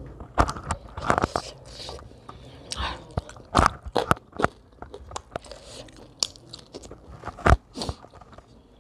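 Close-miked chewing and lip-smacking of a mouthful of rice and fish curry, with sharp wet clicks and smacks at irregular intervals, a few of them much louder than the rest.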